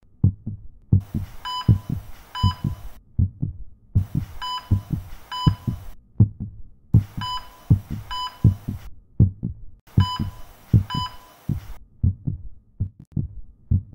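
Heartbeat-like thumping that keeps going throughout, with a two-second burst of static hiss every three seconds. Each burst carries a pair of short electronic beeps.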